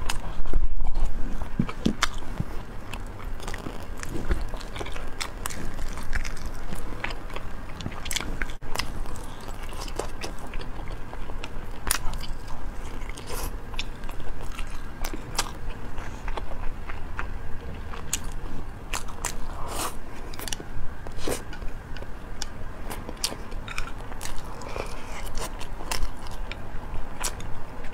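Close-miked mouth sounds of eating sweet-and-sour pork ribs with rice: biting and chewing, with irregular sharp clicks and smacks.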